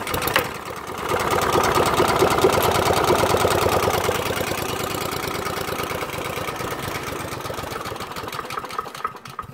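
Honda four-stroke lawnmower engine pull-started cold with its new recoil starter. It catches within the first second and runs steadily, then dies away near the end.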